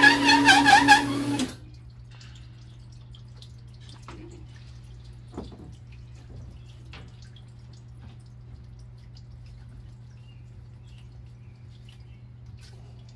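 Ball hone spinning in a Yamaha GP1300R two-stroke cylinder bore on a honing machine, for a final deburr pass. It makes a loud grinding whir with a warbling pitch and stops about one and a half seconds in. After that only a low steady machine hum remains, with a few faint clinks.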